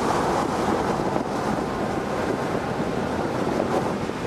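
Steady rushing noise of wind and road noise heard from inside a moving car driving through a storm.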